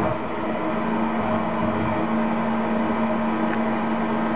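FM radio receiver tuned to a jammed frequency near 103.5 MHz, putting out the jamming signal: a steady buzzing drone with a hum tone held under a noisy hiss.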